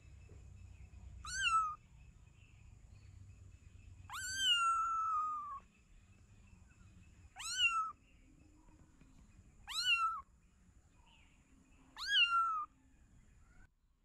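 A kitten meowing five times in high, thin calls that rise sharply and then fall away, the second call drawn out longer than the rest.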